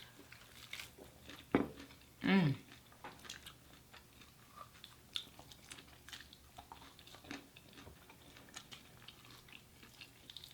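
A person chewing and biting food close to the microphone, with many small mouth clicks and wet smacks throughout, and a short low voiced murmur about two seconds in.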